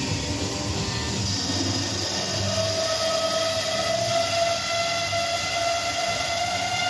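Semi-automatic column bandsaw cutting through 27-inch ductile iron pipe: a steady running and cutting noise, with a sustained high whine from the blade setting in about two and a half seconds in and holding.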